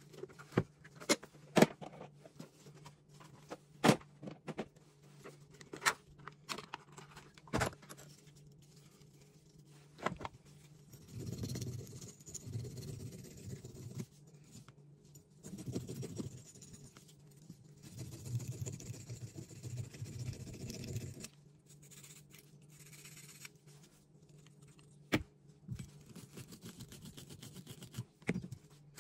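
Sharp clicks and taps of a plastic tool case and small metal pistol parts being handled on a workbench, then about ten seconds of scraping as a cleaning pick works over the small parts of a Beretta pistol, with a few more clicks near the end.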